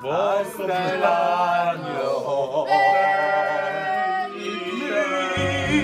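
A small group of men and women singing together a cappella, without instruments, some notes held long.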